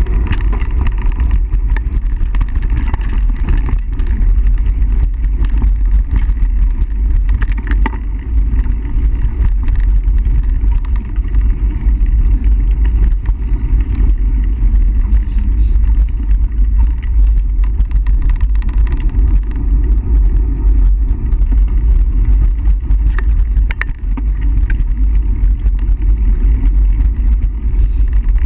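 Mountain bike ridden fast down a dirt singletrack, heard from a handlebar-mounted camera: a loud, steady low rumble of tyres on the trail and wind on the microphone, with occasional sharp clicks and rattles over bumps.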